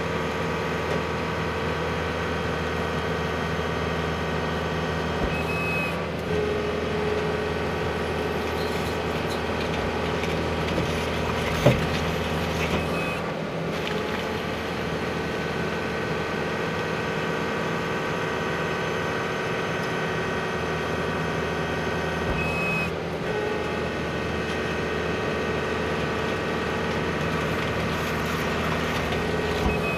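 Tractor engine running steadily while powering the levee builder's hydraulic plunger. The note changes briefly about every eight seconds as the plunger cycles, and there is a single sharp knock about twelve seconds in.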